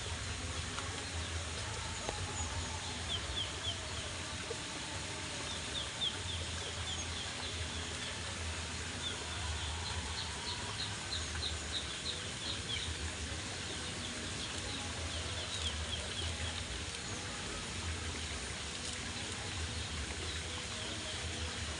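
Steady hiss of rain, with a bird giving runs of quick, high chirps several times a second.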